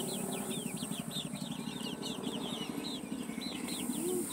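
A flock of young chickens peeping: many short, falling cheeps overlapping several times a second, over a steady low hum.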